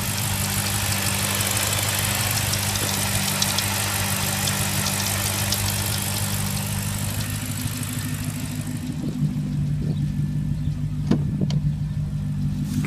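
BMW 545i's 4.4-litre V8 idling steadily, heard close up in the open engine bay with a hiss over a low hum; about nine seconds in the hiss falls away, and a couple of sharp clicks follow near the end.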